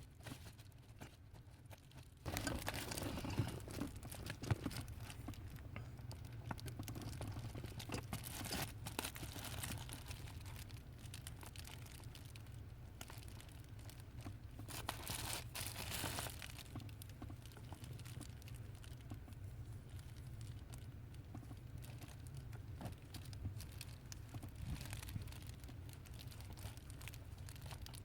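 Soldering on a small wire-to-pin joint: faint crackling and hissing as flux and solder melt under the iron, with small clicks, starting about two seconds in and stronger in two stretches near a third and halfway through, over a steady low hum.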